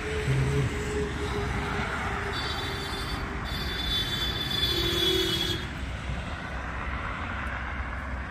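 Highway traffic: a steady rush of passing vehicles, with a shrill high-pitched tone sounding for about three seconds partway through.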